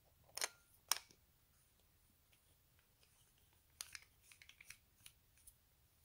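Faint metallic clicks and taps from a copper flashlight's head being fitted back onto its body and screwed on: two sharper clicks within the first second, then a cluster of light ticks about four to five seconds in.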